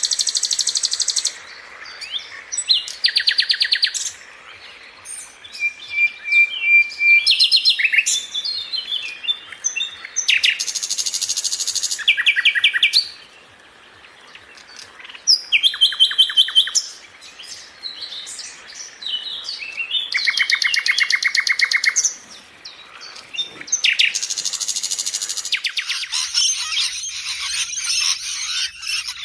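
Songbirds singing: a run of separate phrases of rapid high trills and chirps, each lasting a second or two with short pauses between. Near the end it turns into a denser, continuous chorus of high calls.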